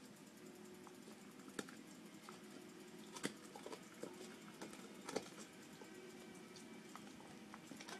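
A Carolina Dog gnawing on a bone: faint, irregular clicks and scrapes of teeth on the bone, with three sharper cracks about one and a half, three and five seconds in.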